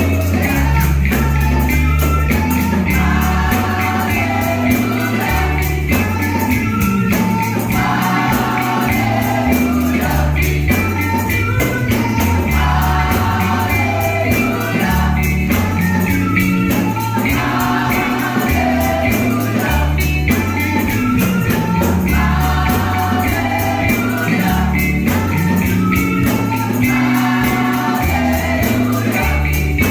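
Gospel music with a choir singing over a steady beat and strong bass line.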